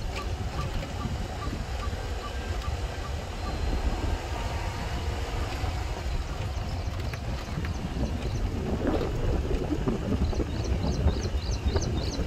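Wind buffeting the microphone outdoors, a steady fluctuating rumble. A bird calls in a run of short, high, rising chirps near the end.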